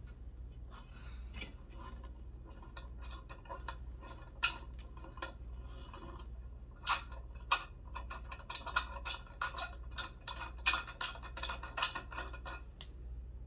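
Small metallic clicks and taps of a screwdriver and loose parts on a brass light fixture being taken apart, sparse at first and coming thick and fast from about halfway in.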